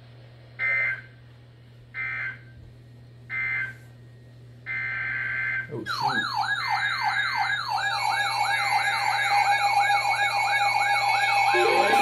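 NOAA weather radio alert: three short buzzy bursts of digital data tones, the SAME header of an EAS Winter Storm Warning, then a longer burst. From about six seconds in comes a loud electronic alert siren, a warble of quick falling sweeps repeating a few times a second, with more steady alert tones building up on top of it near the end.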